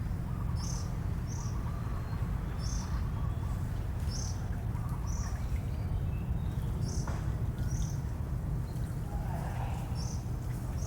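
A small bird chirping: short, high chirps, often in pairs, repeated every half second to a second, over a steady low rumble.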